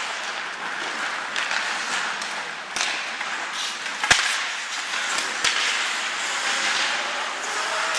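Ice hockey play: skates scraping and carving on the ice in a steady hiss. Three sharp knocks of stick and puck cut through it, the loudest about four seconds in.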